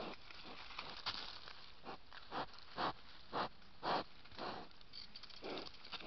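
Wild boar sniffing at the ground close to the microphone: a run of short, breathy sniffs about two a second, loudest near the middle.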